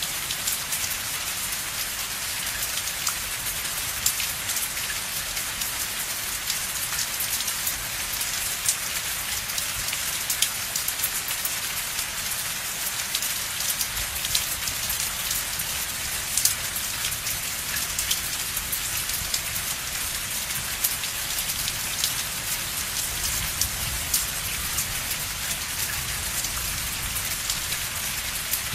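Steady rain falling: a dense, even hiss with many individual drops ticking sharply.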